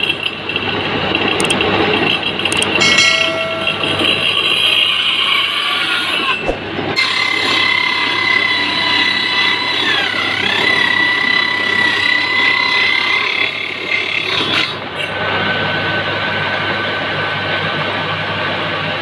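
Homemade square-tenon cutting machine running: its two electric motors drive the saw blades through V-belts, making a loud steady machine noise. A high whine joins in about seven seconds in, dips briefly partway through and stops near fifteen seconds.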